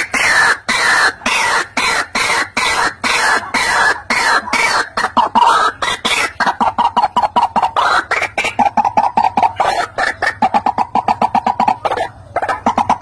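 White-breasted waterhen calling: a fast, monotonous run of harsh croaking notes, several a second, which settle into a more even, steadier pitch about halfway through and break off briefly near the end.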